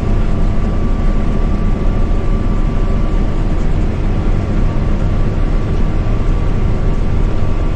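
Combine harvester running at work, heard from inside its cab: a steady low engine and machinery drone with a thin, steady high whine over it.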